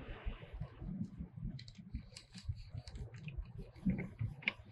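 Scattered light clicks and small knocks from hands working a spinning reel and rod, over a low irregular rumble.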